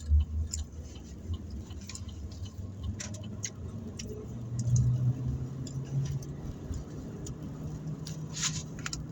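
Low rumble and steady hum inside a car, with scattered small clicks and rustles. The rumble is strongest in the first second.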